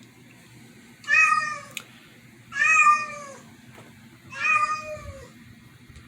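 Three meows about a second and a half apart, each a pitched cry that rises a little and falls away, over a low steady hum.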